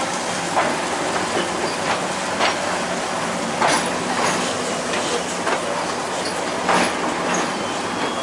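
Passenger train running, heard from inside the carriage: a steady rumble with irregular sharp clacks from the wheels on the track.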